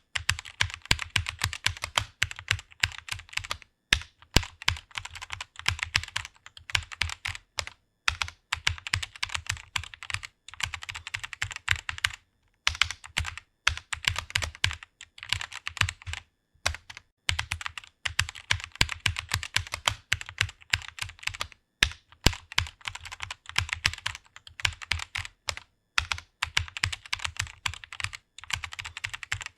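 Fast, continuous typing on a computer keyboard, with brief pauses every few seconds.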